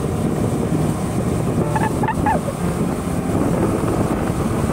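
Wind rushing over the microphone and road rumble from a vehicle in motion, steady throughout. A brief high-pitched call cuts through about two seconds in.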